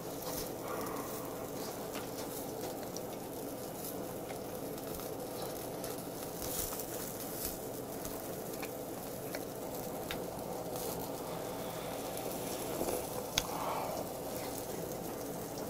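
Chicken skewers sizzling steadily on a charcoal tabletop grill, with scattered small pops and crackles.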